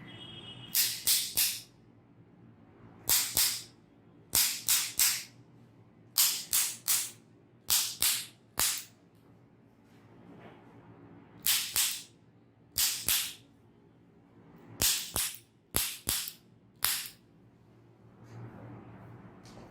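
Sharp hand slaps, loud and quick, in runs of two or three about a third of a second apart, repeated about a dozen times.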